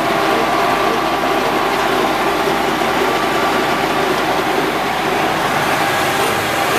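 Horizontal boring mill running steadily, its drive motor and spindle gearing giving a constant hum with several steady tones.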